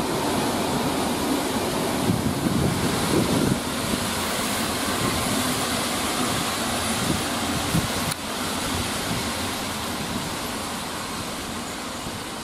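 PKP Intercity passenger coaches rolling past: a steady rumble and hiss of wheels on rails. It drops a step about eight seconds in and fades slowly towards the end.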